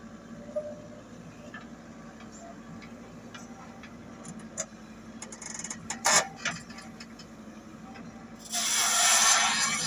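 Komatsu WB93R backhoe loader's diesel engine running steadily, with scattered knocks and clanks around the middle and a loud rushing noise for about a second near the end.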